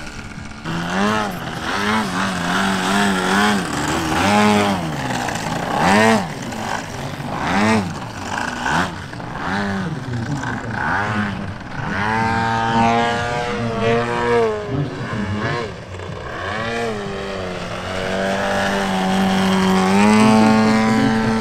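Engine of a large-scale radio-controlled aerobatic plane, its pitch rising and falling about once a second as the throttle is worked through low aerobatics. Near the end it holds a steady note and then steps up.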